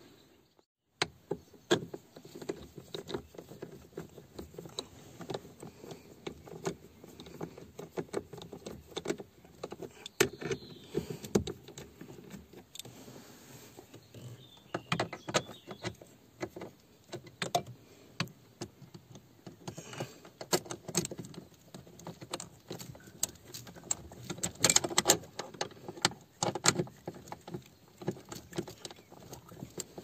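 Hands working on a Škoda Felicia's steering-column ignition lock and switch box: irregular small clicks, knocks and rattles of metal and plastic parts and wiring connectors, with keys jangling, busiest near the end.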